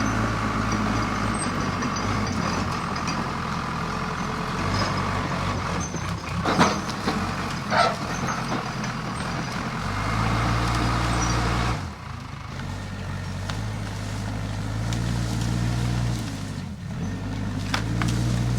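Case 550G crawler dozer's diesel engine running under work, its pitch dropping and coming back up twice in the later part. There are two sharp knocks about six and eight seconds in.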